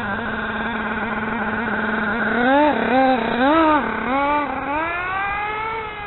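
Motor of a rebuilt vintage radio-controlled car whining steadily, then rising and falling in pitch with four or five quick throttle bursts and one long rise and fall as the car pulls away, fading near the end.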